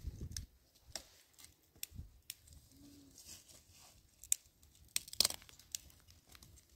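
Dry branches and twigs crackling and snapping as they are gathered and handled, in scattered sharp cracks, loudest in a cluster about five seconds in.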